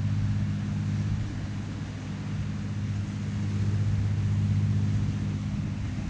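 A steady low engine hum with a few even tones, over a rush of background noise.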